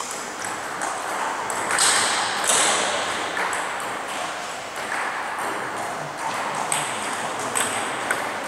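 Table tennis balls clicking off bats and tables, an irregular run of sharp pops from rallies at other tables. About two seconds in, a louder rush of noise lasts for about a second.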